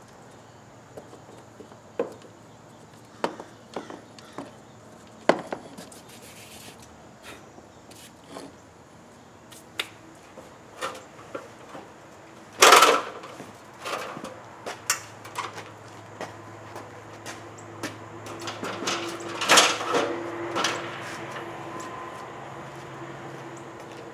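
Scattered light knocks, taps and rubbing of hands working a camera cable into a small hole in a wall, with a louder clatter about halfway through and another cluster of knocks about three-quarters through. A low steady hum sits under the second half.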